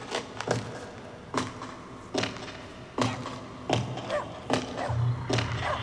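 Sound effects from a projection-mapping show's soundtrack played over loudspeakers: a run of sharp knocks and thuds, roughly one every second, with a low hum coming in at moments.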